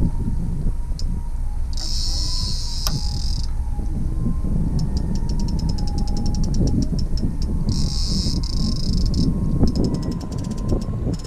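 Fishing reel clicking in rapid runs, the ticks blurring at times into a continuous high buzz, over a heavy low rumble of wind buffeting the microphone.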